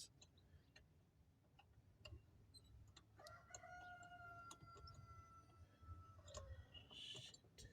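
Near silence with scattered faint clicks from handling the headlight bulb and its housing, and a faint drawn-out call held for about three seconds in the middle.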